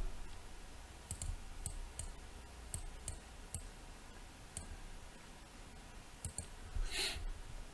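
Faint computer mouse clicks, about ten of them spread over several seconds, some in quick pairs, as nodes are placed and dragged in software. Near the end there is a short, soft hiss.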